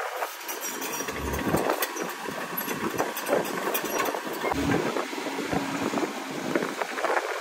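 Heavy diesel machinery running, with scattered clicks and knocks and two brief low thuds.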